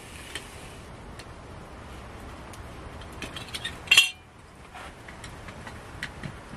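Light clicks and clinks of hard objects being handled, a quick run of them ending in one sharp, loud clink about four seconds in.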